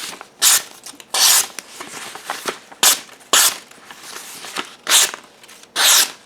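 Freshly sharpened VG10 blade of a Spyderco Delica 4 slicing through a sheet of paper, about six short hissing swishes in a row: an edge test, the clean cuts a sign of a keen edge.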